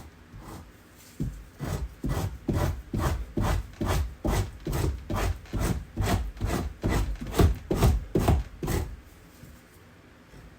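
Knife scraping meat off an otter hide around the head in quick repeated strokes, about two or three a second, starting about a second in and stopping near the end.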